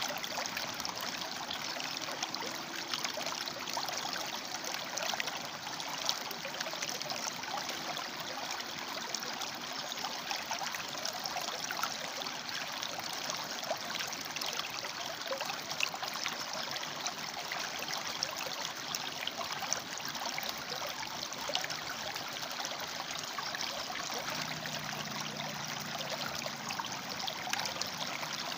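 River water flowing between rocks: a steady rush with constant small bubbling and splashing.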